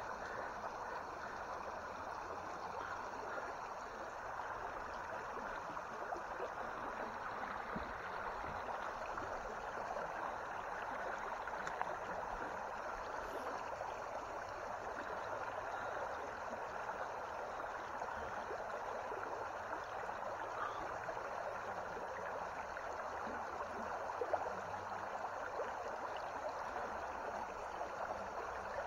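Shallow creek water running steadily over a stony riffle, a constant even rush. Two faint clicks sound partway through.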